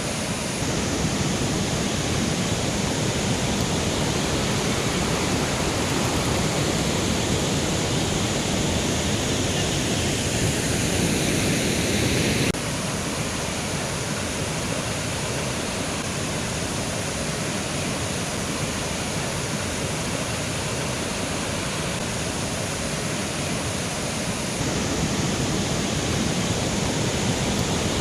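Mountain river rushing over rocks: a steady, dense rush of water. The sound changes abruptly twice, getting a little quieter about a third of the way in and louder again near the end, as between separate takes.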